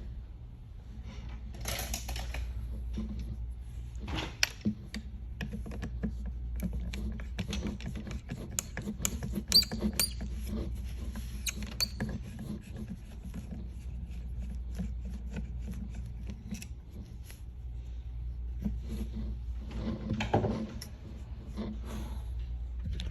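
Handling noises: scattered clicks, taps and light knocks, busiest about halfway through, a few with a brief high ring, over a steady low hum.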